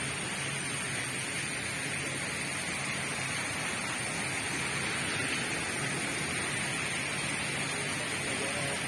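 Steady, even hiss of outdoor background noise, with a faint low hum that comes and goes.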